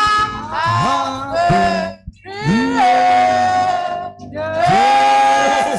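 Worship singing: a voice sings long held notes, sliding up into each one, in phrases broken by short breaths.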